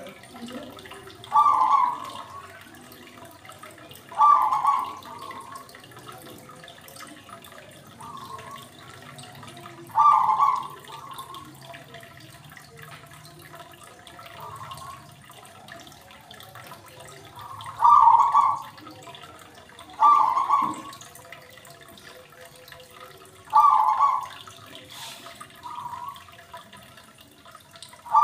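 Aquarium water gurgling in short, loud bursts every two to four seconds, over a faint steady low hum.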